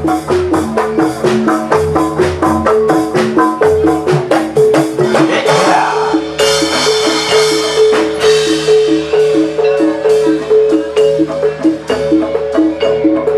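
Javanese gamelan music: keyed metallophones play a fast, even stream of struck notes over a sustained low tone, with a bright cymbal-like shimmer swelling about five seconds in and fading a few seconds later.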